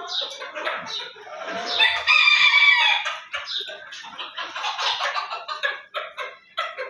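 Chickens calling, with a rooster crowing loudly about two seconds in, followed by a quick run of short clucks.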